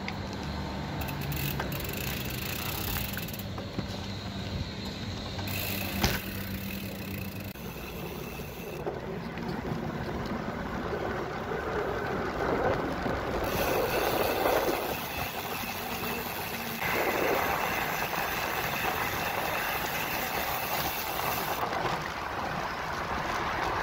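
Road traffic and wind noise on the microphone while riding a bicycle along city roads, with a steady low hum in the first several seconds and a single sharp click about six seconds in.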